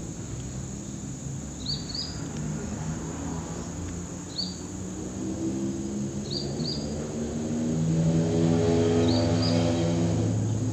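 An engine hum, most likely a passing motor vehicle, that grows louder in the second half and drops in pitch near the end, under a small bird chirping in short double notes every couple of seconds and a steady high insect drone.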